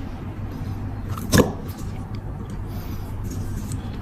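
A single sharp click about a second and a half in, followed by a few faint ticks, from a lighter being handled during hinge repair, over a steady low hum.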